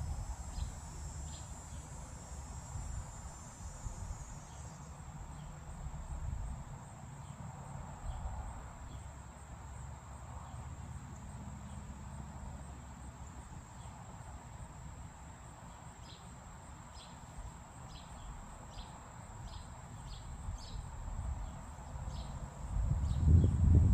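Steady high-pitched insect trill, as of crickets, running on without a break, with short high chirps that become frequent in the second half over a low outdoor rumble.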